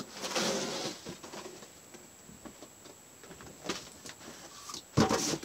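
Packaging being handled: a rustling scrape about a second long at the start, scattered light clicks, and a short, louder scrape near the end.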